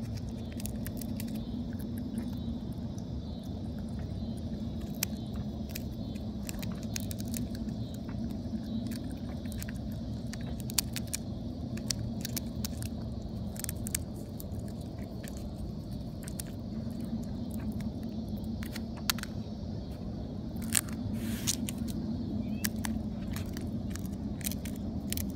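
Groundhog crunching and chewing peanuts, a scatter of sharp crackling clicks over a steady low rumble.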